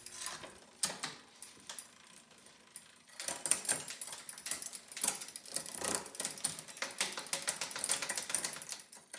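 Mountain bike drivetrain turning on a new 9-speed chain, with Shimano Deore derailleurs: scattered clicks for about three seconds, then fast, dense ticking, like a typewriter, as the cranks turn and the gears shift.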